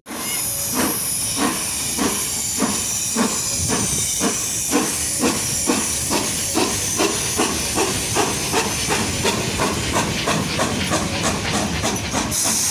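ČSD class 556.0 'Štokr' steam locomotive pulling away with its train: exhaust chuffs in an even rhythm that quickens from under two a second to about four a second, over a continuous hiss of escaping steam.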